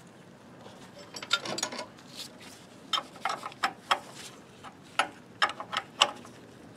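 Wrench tightening the nut that holds the timer brush on a Ford Model T camshaft: a series of sharp metal clicks in small irregular clusters as the wrench is repositioned and turned.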